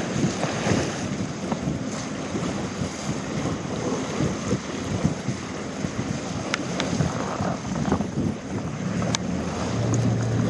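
Wind buffeting the microphone over sea water and waves, with scattered small knocks. A steady low hum comes in near the end.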